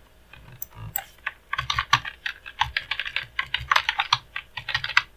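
Typing on a computer keyboard: a few faint clicks, then a quick run of keystrokes from about a second and a half in as a name is typed.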